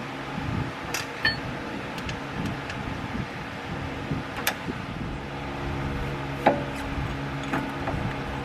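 Scattered clicks and light metal knocks as a wrench turns the press screw of a tie rod end puller to force the outer tie rod end out of the steering knuckle. A steady low hum comes in about halfway through.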